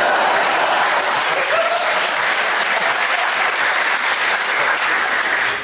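Audience applauding a punchline, steady and dense, fading out right at the end.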